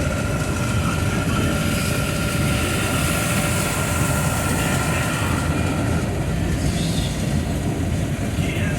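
Truck driving on a rain-wet highway, heard from inside the cab: a steady engine drone under a hiss of tyres and spray. A faint steady whine stops about six seconds in.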